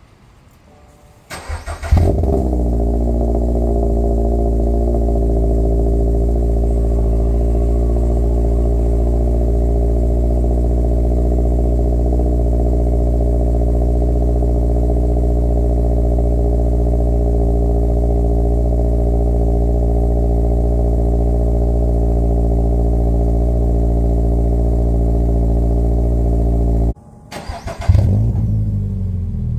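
Subaru BRZ's 2.4-litre flat-four boxer engine, through an MXP Comp RS catback exhaust, cold-started: the starter cranks briefly, the engine catches with a short flare, then settles into a steady idle. Near the end it goes quiet, is cranked again and restarts warm with another short flare.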